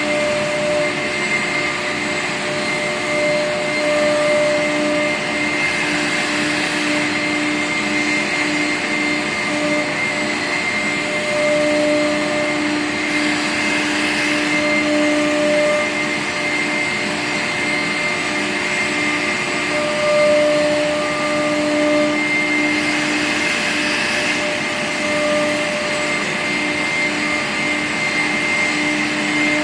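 Four-spindle CNC wood router with air-cooled spindles whining steadily at high speed while it cuts grooves in an MDF cabinet-door panel, over a steady rushing hiss. The whine flickers and swells every few seconds as the cut goes on.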